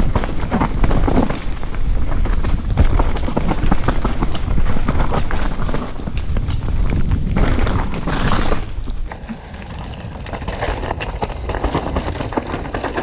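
Mountain bike riding fast down a rough trail: wind buffeting the action-camera microphone, with tyres on dirt and rocks and the bike rattling and clattering over bumps. It gets quieter about nine seconds in.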